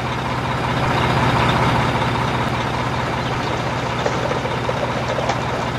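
Truck engine sound effect running steadily: a low, even hum under a rough rumble.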